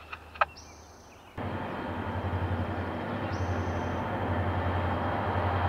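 Diesel locomotive of an approaching passenger train, still out of sight, running with a steady low drone that grows slowly louder. It cuts in suddenly about a second and a half in.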